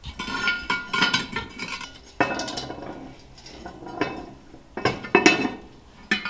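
Steel lid lifter clanking and scraping on the lid of a 10-inch cast-iron Dutch oven as the lid is worked, several sharp metallic clanks with a short ring after them, the loudest about two seconds in and about five seconds in.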